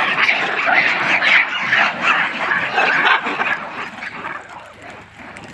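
A large troop of rhesus macaques squealing and calling over one another as they crowd in to be fed, a dense jumble of short shrill calls that is loudest in the first three seconds and thins out toward the end.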